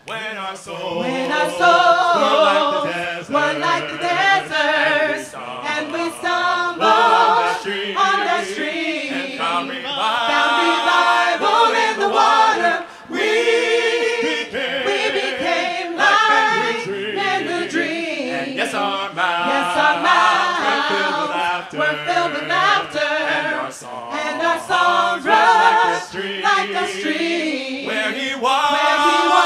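A cappella singing: several voices in harmony with no instruments, starting suddenly and carrying on as a song.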